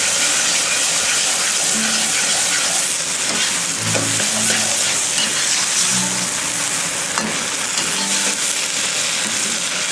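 Vegetables and lentils sizzling in a hot wok, stirred with a metal wok ladle: a steady sizzle with the ladle's scrapes and knocks against the pan every second or two.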